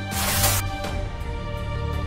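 Background music with sustained, held tones; a short burst of rushing noise sweeps through it about half a second in.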